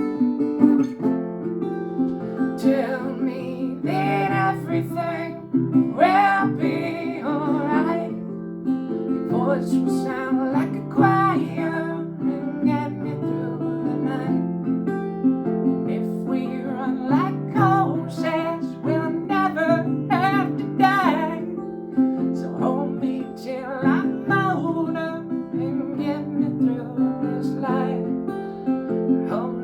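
Acoustic guitar strumming a steady chord pattern, with a voice singing over it from a few seconds in.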